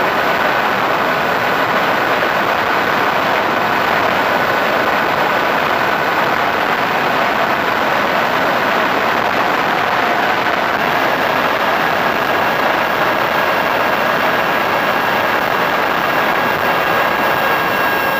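Radio-controlled A-10 model aircraft in flight, heard from its onboard camera: a steady motor whine over a loud rush of air. The whine dips slightly at the start and rises a little about eleven seconds in as the throttle changes.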